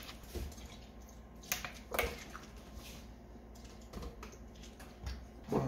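A handful of light, scattered clicks and taps from a plastic lemon-juice squeeze bottle being squeezed and held over a blender jar, over a faint low steady hum.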